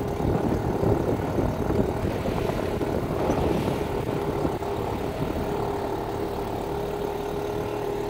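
A steady engine drone holding one even pitch, under a gusty low rumble of wind on the microphone.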